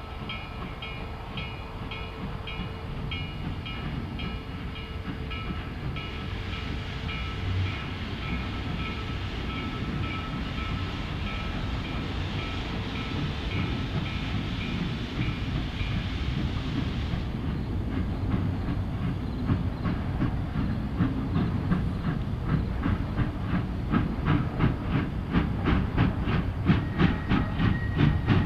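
2-8-0 Consolidation steam locomotive No. 734 working a passenger train: its bell rings steadily about twice a second, with a hiss of steam from around the cylinders. The bell stops partway through, and the exhaust chuffs grow steadily louder over a low rumble.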